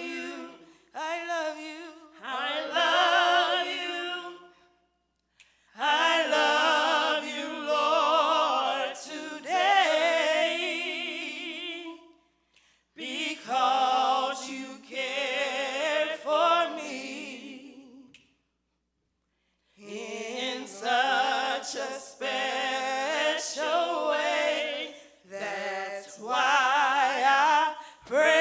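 Small church praise team of three voices singing a gospel worship song with heavy vibrato, in long phrases broken by two short pauses, about five seconds in and near two-thirds of the way through.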